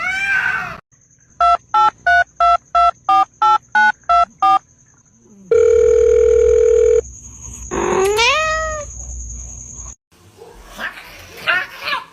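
A series of ten short, evenly spaced electronic beeps like phone keypad tones, then a steady electronic tone for about a second and a half. A cat then meows once with a rising call, and a short call is also heard at the very start.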